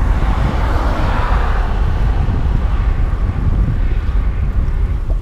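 Wind buffeting a bike-mounted action camera's microphone while riding along a smooth paved cycle path, a steady low rumble, with a rushing sound that swells and fades over the first two or three seconds.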